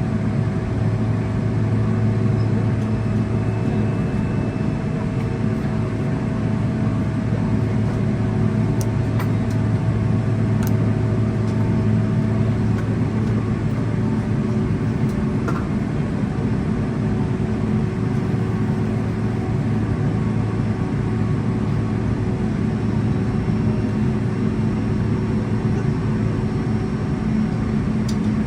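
Steady low hum inside the cabin of a Boeing 777-300ER as it taxis after landing, from its GE90 engines at idle and the cabin air system. A faint steady whine fades out about twelve seconds in.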